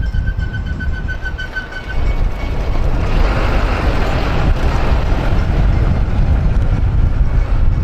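Low, steady rumble of a vehicle driving, with a rushing noise that swells about three seconds in and then eases off. A thin whine fades out near the start.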